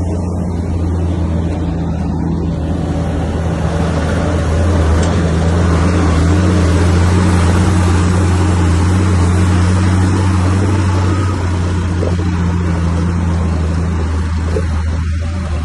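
Bulldozer's diesel engine running steadily with a deep hum, growing louder and harsher for several seconds in the middle before easing back.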